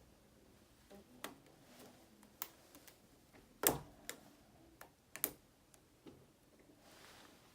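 Handling sounds of the doorknob repair: a scattered series of light clicks and taps, sharpest about three and a half and five seconds in.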